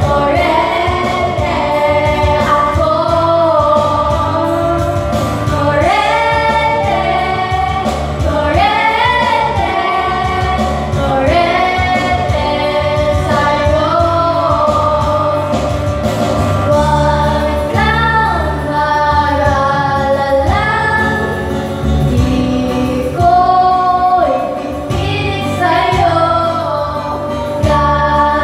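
A group of young women singing together into handheld microphones over a karaoke backing track.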